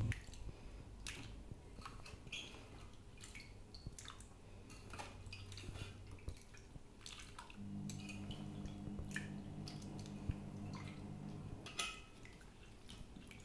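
Quiet drips and small splashes of water as wet potato slices are lifted by hand from a steel bowl of water and dropped into another bowl of water. A low steady hum comes in about halfway through and stops about four seconds later.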